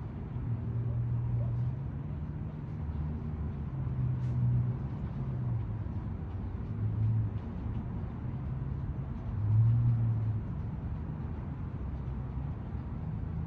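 Low engine drone from passing motor vehicles, with a pitch that shifts and swells louder a few times, about four, seven and ten seconds in.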